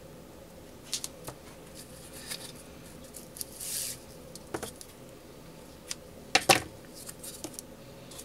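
Small clicks and taps from hands handling a metal alligator hair clip, ribbon and craft tools on a tabletop, with a brief hiss a little before the middle and the loudest double click about six and a half seconds in.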